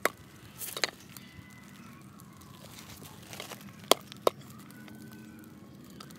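A cleaver knocking on a wooden cutting board as garlic cloves are trimmed and peeled: a few scattered knocks, the two sharpest about four seconds in, with light crackling of the garlic skins between.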